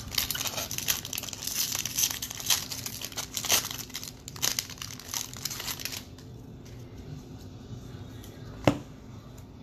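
Foil trading-card pack wrapper being torn open and crinkled by hand, with dense crackling for about six seconds. Quieter handling follows, then a single sharp tap near the end.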